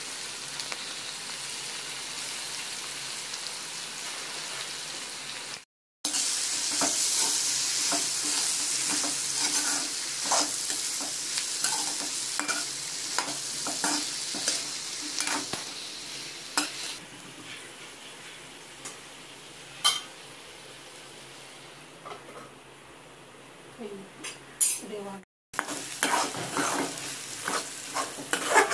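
Sliced ivy gourd (kovakka) frying in an aluminium kadai: a steady sizzle with a metal spoon stirring and scraping against the pan in quick clinks. The sizzle is loudest from about six seconds in and fades after the middle, and the sound cuts out for an instant twice.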